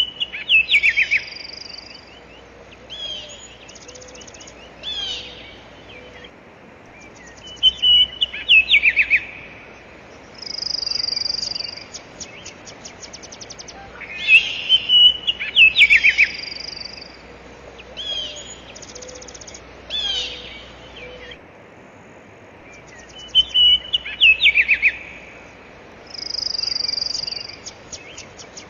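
Several birds calling: short chirps, quick sweeping whistles and rapid buzzy trills over a faint steady hiss. The same stretch of calls repeats about every 15 seconds, as in a looped nature-sound track.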